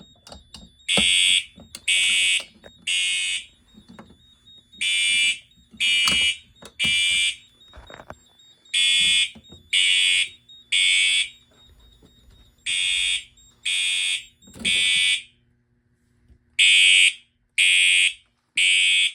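Fire alarm sounding in the temporal-three evacuation pattern: three half-second blasts, a short pause, then the next three, repeating through. Scattered short clicks and knocks fall between the blasts.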